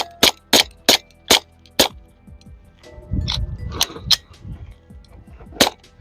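Walther PPK/S .22LR pistol firing through a Silencerco Switchback 22 suppressor: a quick string of five sharp shots, then a few more spaced out in the second half.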